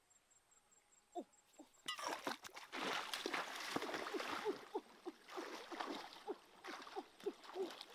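Hands splashing and churning in shallow stream water, groping for fish, starting about two seconds in and loudest in the middle, then settling into a quick run of gurgling plops.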